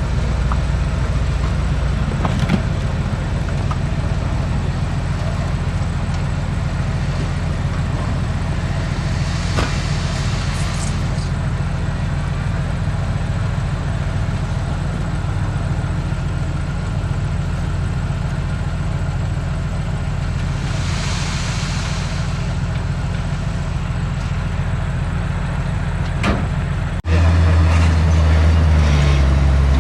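Heavy diesel engine of an earthmoving machine running with a steady low drone, with a few sharp knocks and two brief hissing swells. Near the end an abrupt cut brings a louder engine whose pitch rises and falls.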